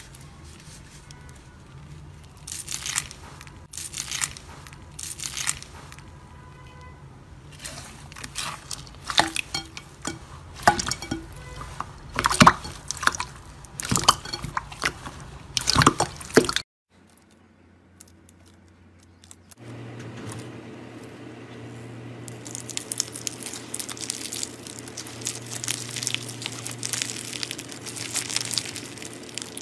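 Hands squishing clear slime mixed with foam beads: separate sticky squelches and air-pocket pops. After a short pause, a white slime full of foam beads is squeezed, giving a steady fine crackling.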